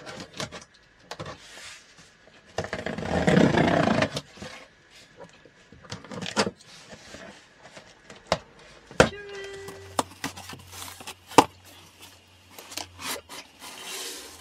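Packing tape being picked at and torn off a cardboard box: scratching and small clicks, a long loud rip a little under three seconds in, and a few sharp knocks against the box later on.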